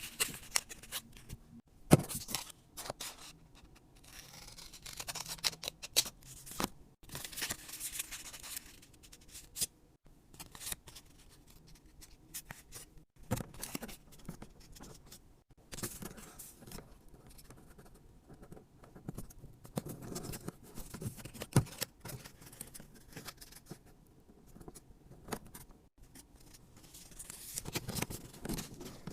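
Hands working craft materials: irregular snipping, scraping and rustling, with sharp clicks now and then.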